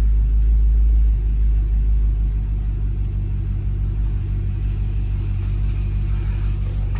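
Fifth-generation Chevrolet Camaro engine idling steadily, a low even rumble that drops slightly in level about a second in. It is being run to check for a cylinder 2 misfire after a new spark plug and injector, and is running clean so far.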